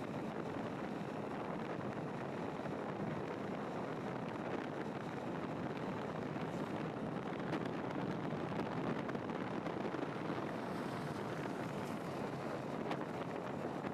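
Steady road and wind noise from a moving vehicle, with wind rushing over the microphone.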